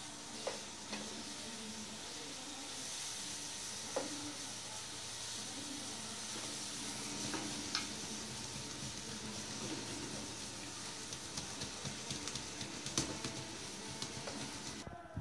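Marinade-basted goat satay sizzling on glowing charcoal, with a few sharp pops over the steady sizzle. The sound drops away abruptly just before the end.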